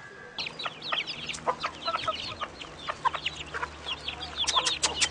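Chickens clucking and chirping: many short high calls in quick, overlapping succession, starting abruptly about half a second in.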